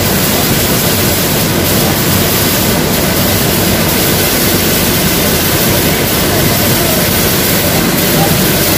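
Corn grinding mill running: a loud, steady noise that holds without change.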